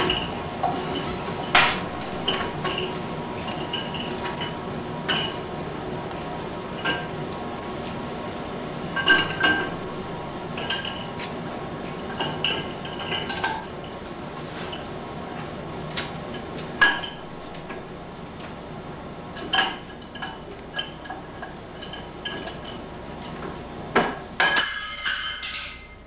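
Dishes and cutlery clinking and clattering against a dishwasher's wire rack as two Irish Wolfhound puppies pull them out. The clinks come irregularly, one or a few at a time, with a denser run of clatter near the end.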